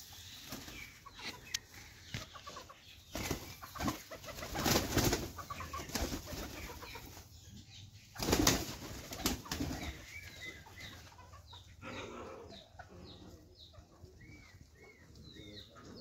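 Pigeons' wings flapping in loud rushing bursts as the flock takes off, the loudest when a piglet runs at them; short high chirps near the end.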